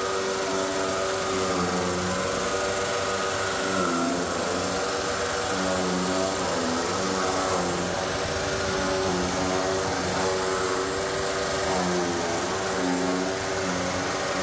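Two electric chaff cutters running, their motors and bladed cutter drums whining steadily while green grass and stalks are fed in and chopped. The whine sags in pitch for a moment a few times, as the blades take a bundle.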